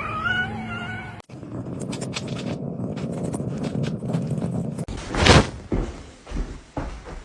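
A cat's short meow, then after an abrupt cut, scuffling noise with light clicks and a run of four or five thumps, the first the loudest.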